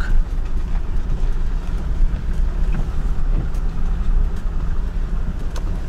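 Vehicle running and moving, a loud steady low rumble of engine and road noise.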